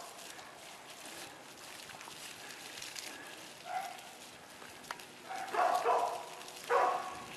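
A dog giving short whining cries, three times, the last two louder, over a steady hiss of hose water.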